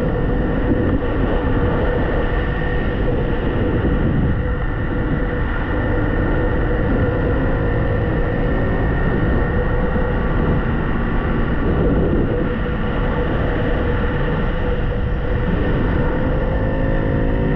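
A Ducati Hypermotard 698 Mono's single-cylinder engine runs at a steady cruise under wind and road noise. Its note rises slightly near the end.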